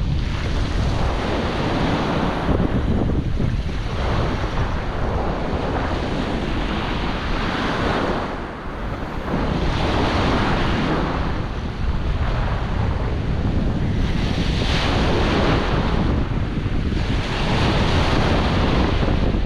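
Surf breaking and washing over stones at the water's edge, surging up every few seconds, with a stiff onshore wind buffeting the microphone in a steady low rumble.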